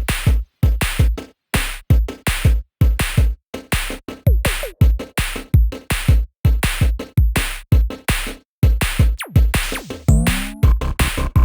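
Electronic background music with a steady, punchy drum-machine beat, about two beats a second, and a swooping synth glide near the end.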